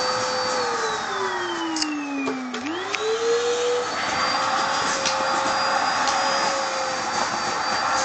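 Vacuum cleaner running steadily, its hose nozzle drawn through a dog's thick coat. The motor's whine sinks in pitch for about two seconds, then climbs back within a second and holds steady.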